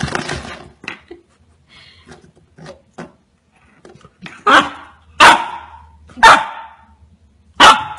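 Golden retriever puppy barking: four loud, short barks about a second apart in the second half, after a few faint short sounds.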